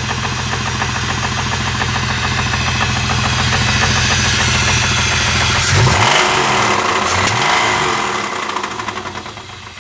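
Dodge Dakota's 3.9-litre V6 running with a heavy rhythmic knock, a sign of a blown engine. About six seconds in, the engine note swings up and down and a hiss rises, then the sound dies down near the end.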